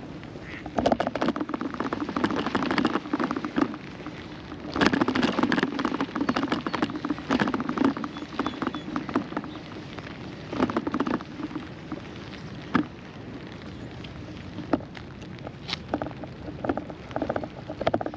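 Rain pattering as a dense crackle of fine drops, coming in uneven bursts over a steady background hiss.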